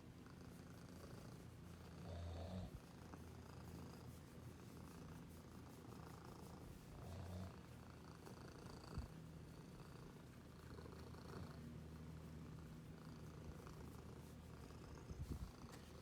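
Domestic cat purring, a faint steady low rumble with a few louder swells, about two and seven seconds in and near the end.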